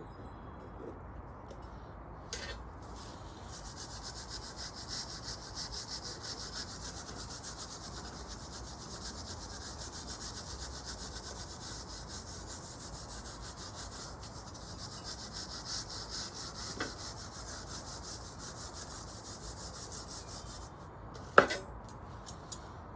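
Steady abrasive rubbing, like sanding, that starts a couple of seconds in and stops shortly before the end, followed by one sharp knock.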